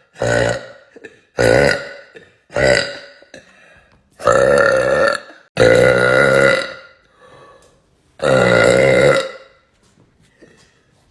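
A woman burping loudly six times: three short burps about a second apart, then three longer, drawn-out burps of about a second each.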